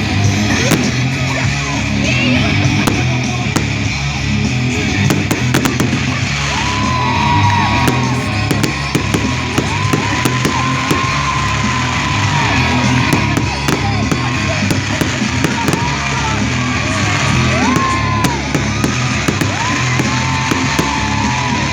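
Festival fireworks going off in many sharp bangs and crackles throughout, over loud music with a steady beat.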